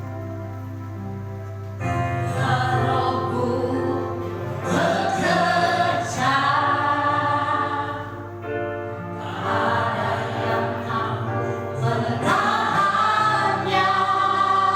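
Christian worship song: sustained keyboard chords alone at first, then a group of voices comes in singing about two seconds in, over the keyboard accompaniment.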